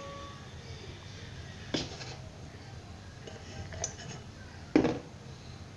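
A drinking glass knocking against a stainless-steel mixing bowl as flour is scooped and poured in for a dough: a few short clinks, about two seconds in, a lighter one near four seconds and the loudest near five seconds, with a metallic ring fading at the start.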